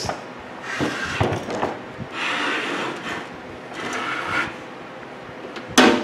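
Metal microwave oven cabinet scraping and sliding across a wooden workbench in three short pushes as it is turned around, then a sharp knock near the end.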